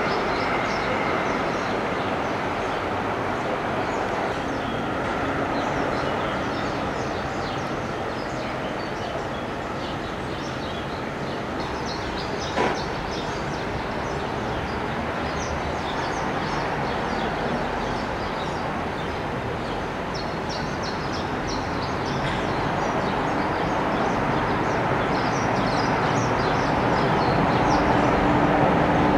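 Steady outdoor background noise, a broad hum like distant traffic or wind, with many short high chirps of small birds scattered through it. A single sharp click sounds about halfway through.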